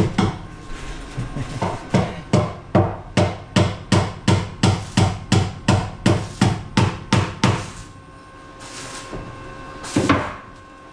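Hammer nailing into wood: a quick, even run of blows, about three a second, then a pause and a couple of single strikes near the end.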